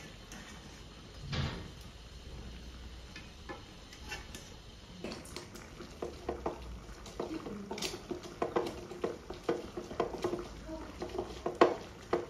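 Wooden pestle pounding dried red chillies in a wooden mortar: repeated dull knocks, about two a second, starting about five seconds in and growing stronger toward the end.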